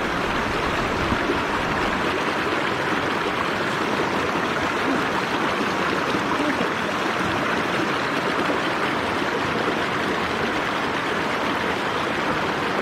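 Mountain stream water rushing over rocks, a steady even flow.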